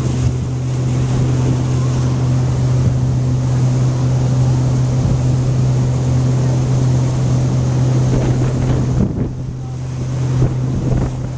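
Pontoon boat's outboard motor running steadily at cruising speed, a constant low hum, with the rush of water from the wake and wind on the microphone.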